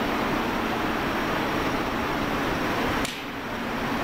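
Steady industrial background noise of a large factory hall, an even hiss and hum, which drops abruptly to a quieter level about three seconds in.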